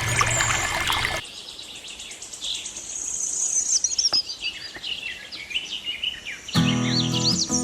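Small birds chirping and twittering in quick, high, repeated calls. Background music plays under them for the first second, stops, and comes back in about a second before the end.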